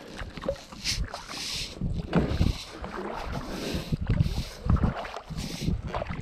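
Double-bladed kayak paddle stroking through calm lake water, with a splashing swish each time a blade dips and pulls, roughly once a second, alternating side to side.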